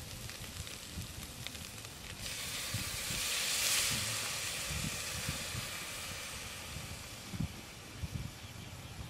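Hot pot of curry soup sizzling and hissing as liquid is poured in from a small bowl: the sizzle starts suddenly about two seconds in, is strongest a second or two later, then slowly dies down. A few faint knocks of the bowl and utensils.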